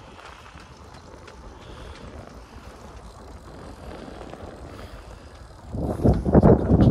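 Bicycle rolling at an easy pace on a smooth paved path, with a faint steady hiss of tyres and passing air. About six seconds in, loud, irregular wind buffeting on the microphone takes over.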